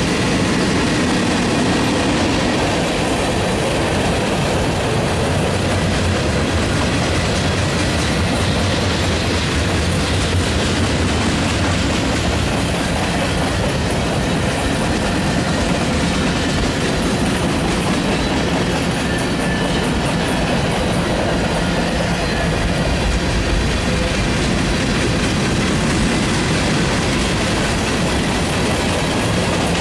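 Union Pacific manifest freight train rolling past: covered hoppers, boxcars and tank cars going by, their steel wheels on the rails making a steady rumble and clatter.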